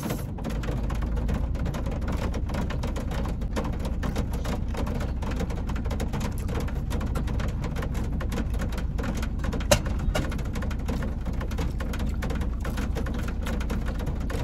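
Rain pattering on a car roof, heard from inside the cabin: an even hiss dense with small ticks over a steady low hum, with one sharper click about ten seconds in.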